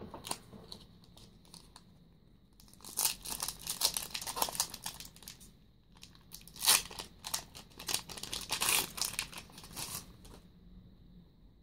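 Foil Yu-Gi-Oh! booster pack crinkling in the hands and being torn open. It comes in two spells of crackly rustling, one from about two and a half seconds in and one from about six and a half seconds in, with the sharpest rip near the start of the second.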